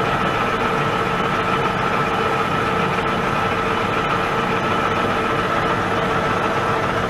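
Pratt & Whitney Model B engine lathe running at 190 RPM with its powered cross feed engaged, taking a facing cut across a piece of stainless steel. A steady machine hum with two constant whining tones, unchanging throughout.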